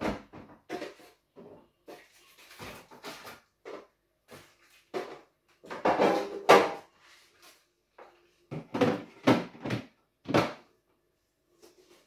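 Bell peppers and a clear plastic fridge storage bin being handled and set into a fridge. Irregular knocks, rattles and rustles, loudest about six seconds in, with a cluster of sharper knocks near the end.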